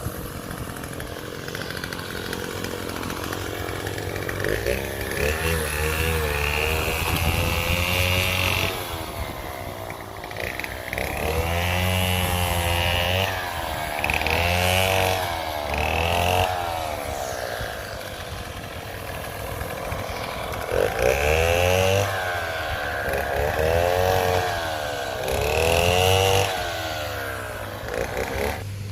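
A motor running loudly, surging in repeated bursts of several seconds each, with a warbling pitch that rises and falls over a steady low hum.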